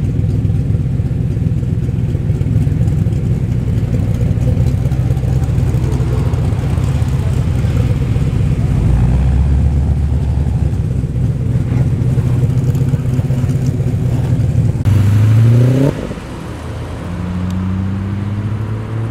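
Muscle car engines running at low revs with a steady low rumble, one revving up briefly about fifteen seconds in; near the end another car accelerates away, its engine note rising.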